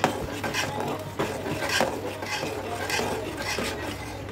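A steel fork stirring hot jaggery syrup in an aluminium pot, scraping the pot in even strokes a little under two a second, as the syrup is cooked down toward string consistency.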